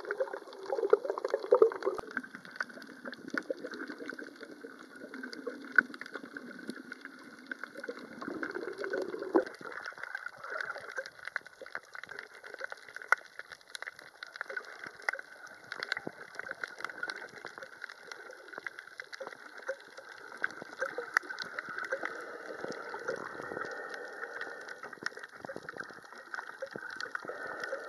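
Underwater sound heard through a submerged camera over a coral reef: a steady wash of water peppered with many small scattered clicks. A lower rushing sound runs for the first nine seconds or so, then stops.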